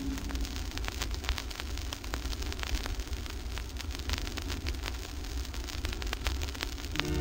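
Vinyl LP surface noise in the blank groove between songs: steady hiss and low rumble with frequent crackles and clicks. Sustained organ-like music starts again near the end.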